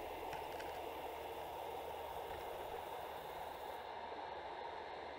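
Faint, steady rushing noise with a thin hiss on top, unchanging throughout.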